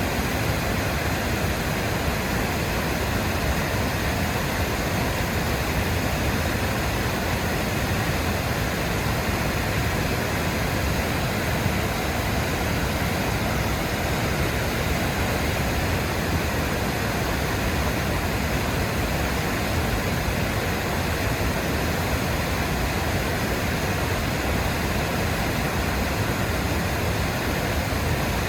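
Waterfall: water falling and crashing in a steady, even rush of noise with no change.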